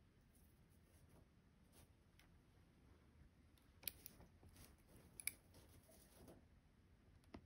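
Near silence with faint rustling and a few brief sharp clicks, the two loudest about four and five seconds in: hand cross-stitching, with needle and floss being worked through Aida fabric.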